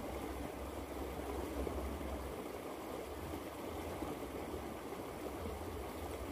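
Small, fast stream rushing and churning over a riffle, a steady rush of water.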